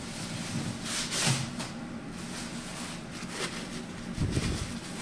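Handling noises from parts being worked on the machine: a rubbing rustle about a second in and a dull thump about four seconds in, over a steady low hum.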